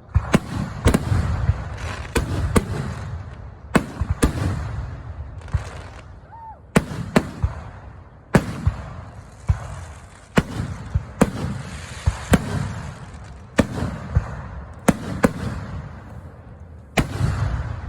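Fireworks display: shells bursting in quick succession, with sharp bangs coming every second or so and sometimes in close pairs, and a low rumble between them.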